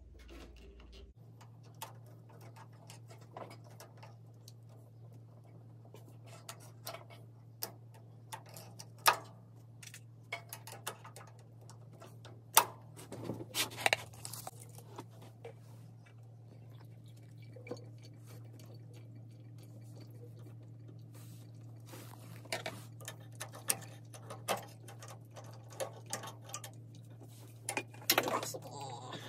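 Hand tools clicking and clinking against metal as work starts on the air-cooled VW engine's rusted bolts and nuts: scattered, irregular clicks and knocks, with a few sharper ones about nine and thirteen seconds in, over a steady low hum.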